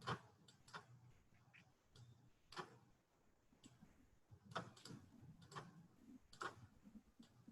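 Faint, irregular clicks of a computer mouse and keyboard, about a dozen short taps spread unevenly, over quiet room tone.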